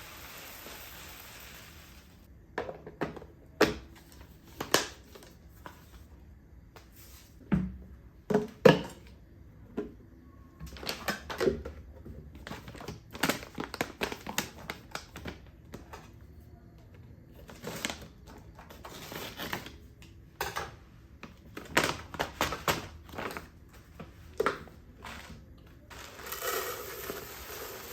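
A steady hiss that cuts off about two seconds in, then irregular clicks, knocks and clatter of objects being handled, with light rustling between them.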